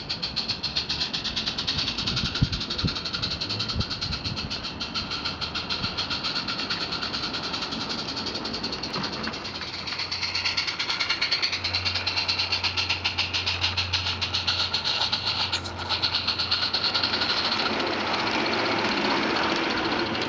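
Small live-steam garden-railway locomotive chuffing rapidly and evenly as it hauls a train of bogie wagons.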